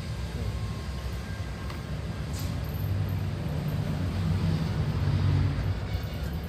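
Steady low drone of workshop machinery running, with a faint tick or two.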